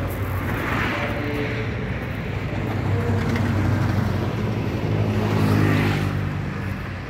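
Road traffic: motor vehicles passing, with a steady low engine hum. One swell comes about a second in and a louder one about five and a half seconds in, where an engine's pitch rises as it accelerates.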